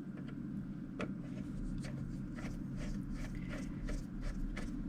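Small screwdriver driving the tiny mounting screw that holds an M.2 SSD to the motherboard: light scattered clicks and scrapes, over a steady low hum.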